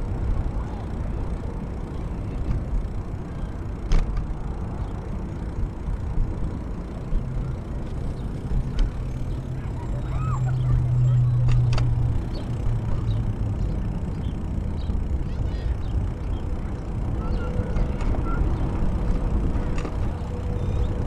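Wind rumbling on the microphone and tyre noise from a bicycle moving along a paved path. A low hum swells and fades around the middle, and there are a couple of sharp clicks.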